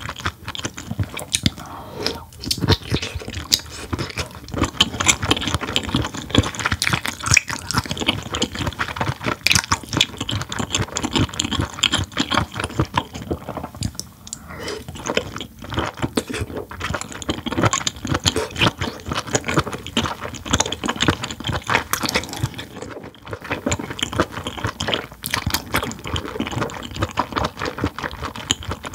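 Close-miked chewing and biting of cooked whelk meat, a dense, continuous run of wet mouth clicks.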